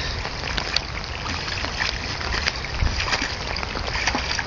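A German Shepherd splashing in floodwater as it searches for a lost ball: irregular small splashes and sloshes over a steady rushing noise.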